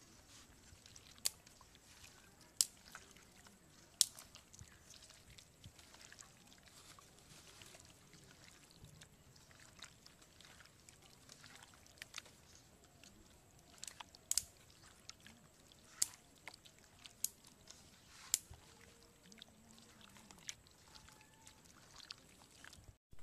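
Raw chicken pieces being kneaded by hand with onion, turmeric and ginger, garlic and chilli paste in a steel bowl: faint wet squelching, with sharp clicks scattered through.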